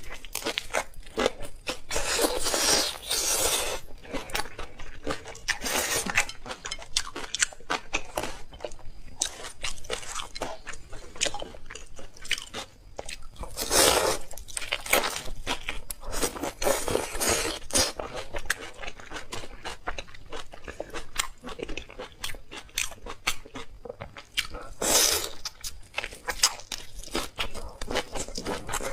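Close-miked crunching and chewing as someone eats stuffed prawns: a steady run of sharp, crisp crunches with several louder bursts of crunching along the way.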